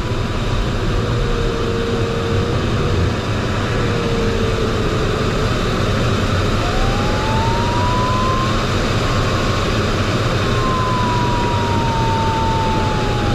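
Steady rush of airflow in a glider cockpit in flight. Over it runs the electronic variometer's continuous tone, low at first; about halfway through it glides up in pitch, then slowly slides back down near the end. The tone's pitch follows the glider's rate of climb or sink.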